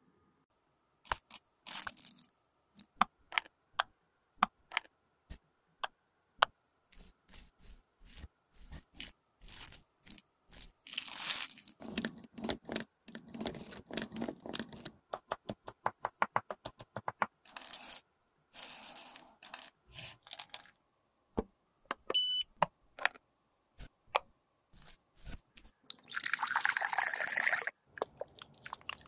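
Close-miked handling sounds of makeup products and tools on a hard tabletop: many sharp clicks and taps, a quick even run of clicks around the middle, and short crunchy, rustling bursts, the longest near the end. A brief high tone sounds a little past the middle.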